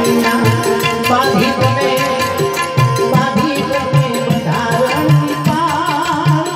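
Live Gujarati devotional santvani music: a harmonium holds a sustained melody over steady tabla drumming. A wavering melodic line enters near the end.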